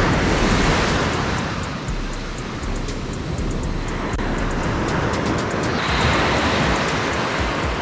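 Ocean surf breaking and washing up the sand in the shallows, a wave crashing at the start and another about six seconds in.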